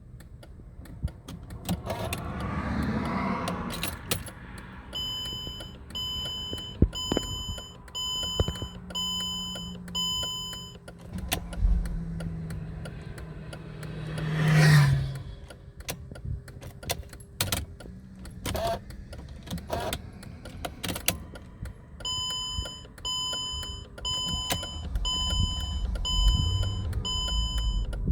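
Mercedes-Benz W211 E-Class warning chime beeping steadily about once a second, in two spells, while the car will not start, with scattered sharp clicks. About halfway through, a loud swell rises and falls, like a vehicle passing close by.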